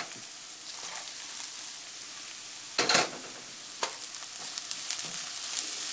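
Sliced onions, ginger, garlic and curry leaves sizzling in hot oil while a wooden spatula stirs them. The spatula scrapes and knocks against the pan a few times, loudest about three seconds in.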